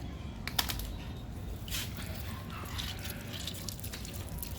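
Wet squishing and dripping as raw rooster pieces are rubbed and turned with lime in water, with a couple of sharp clicks just over half a second in.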